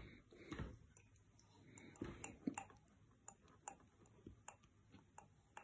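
Faint, irregular clicks and soft mouth sounds as a baby sips from a glass held to his lips, a few ticks a second at most.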